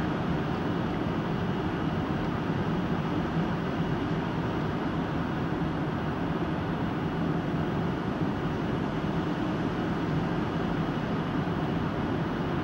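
Steady cabin noise of a jet airliner descending towards landing: a constant, deep rush of engines and airflow with no change in level.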